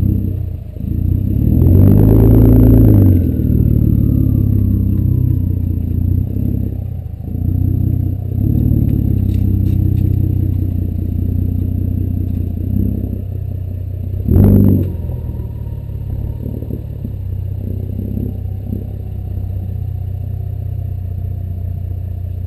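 2010 Ford Taurus SHO's twin-turbo 3.5-litre V6 heard through a custom cat-back exhaust, running steadily, with a louder rev-up about two seconds in followed by a faint falling whine, and a short loud surge about fourteen seconds in.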